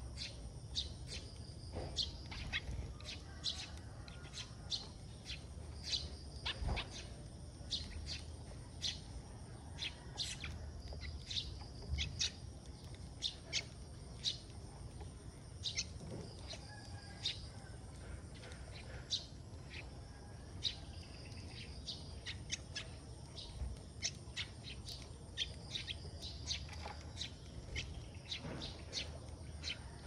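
Sparrows chirping at a feeder: many short, high chirps at irregular intervals, over a faint, steady, low background rumble.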